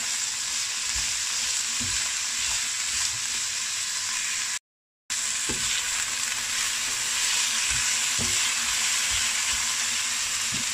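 Lotus root strips and garlic sizzling in oil in a nonstick wok as they are stirred with a silicone spatula, with a few soft knocks of the spatula against the pan. The sound drops out completely for a split second a little before halfway.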